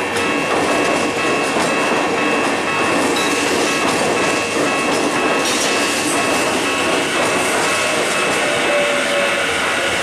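Tokyu 5050-series ten-car electric train rolling slowly past, its wheels clacking over the rail joints, under a steady high tone. A brief hiss comes about five and a half seconds in.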